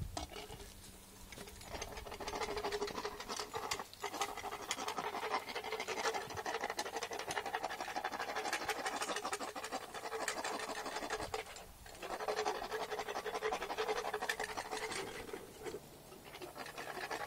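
Dental float rasping against a horse's molars in rapid scratching strokes, with short pauses about four, twelve and sixteen seconds in. The rasp is filing sharp, ragged tooth edges smooth.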